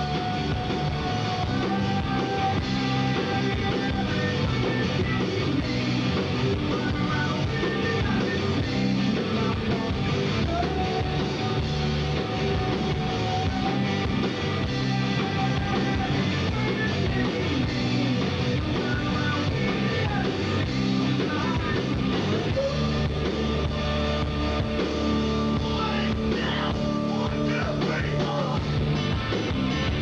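Rock band playing live: electric guitars, bass and drums, with long held notes over the band at times.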